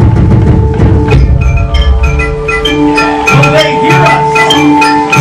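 Live percussion played with sticks on drums and pitched instruments built into sculpted rock: rapid drum hits for about the first second, then a steady rhythm of ringing bell-like notes mixed with short knocking wood-block strikes.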